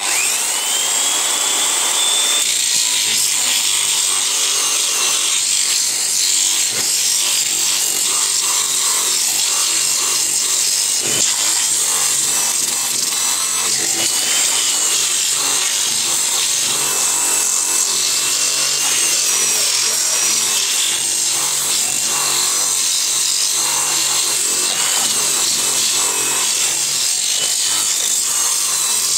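An old power sander switched on, its motor whine rising as it spins up, then running steadily while its sandpaper grinds against wood to shape it rather than finish it; the whine wavers as the load on it changes.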